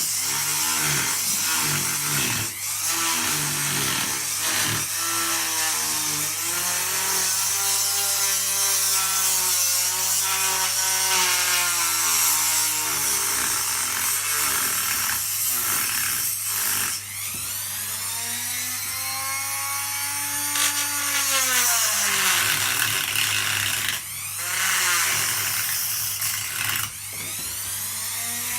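Ryobi power tool with a diamond blade cutting around bathroom tiles, its motor whine sagging in pitch as the blade bites and climbing back as it eases off, several times over, with a gritty grinding along with it.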